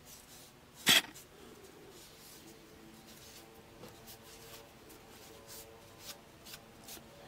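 Cotton pad rubbing along steel bonsai scissors, spreading a coat of oil over the blades: soft, faint scratchy strokes. One short sharp click about a second in.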